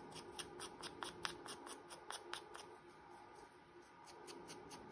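Faint, quick clicks and rustles of a thin paper envelope being handled and worked, densest in the first two and a half seconds.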